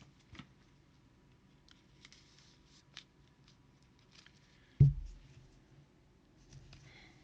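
Trading cards being handled on a table: faint scattered clicks and soft sliding rustles, with one sharp thump about five seconds in.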